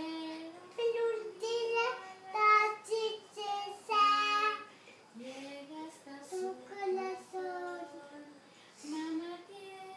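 A young boy singing a song without accompaniment, in short pitched phrases with brief breaks between them; he sings louder in the first half and more softly from about five seconds in.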